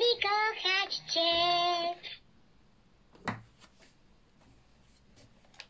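2023 Furby toy singing in its high, childlike synthesized voice for about two seconds: quick sliding notes, then one held note. Then a single soft knock about three seconds in as a hand handles the toy.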